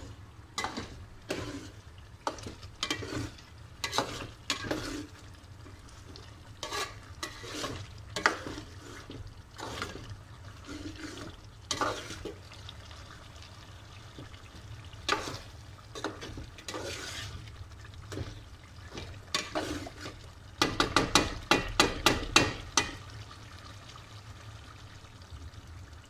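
Metal ladle stirring and scraping through thick chicken curry in an aluminium pot, in irregular strokes. Toward the end comes a quick run of about a dozen loud scrapes and knocks of the ladle against the pot.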